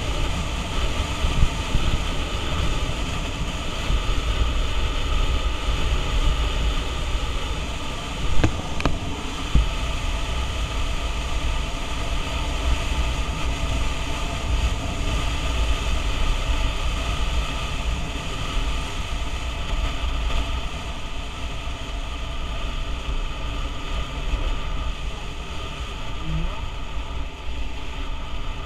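Motor scooter riding at steady speed: engine and drivetrain drone under heavy wind buffeting on a helmet-mounted microphone, with a short knock about eight seconds in.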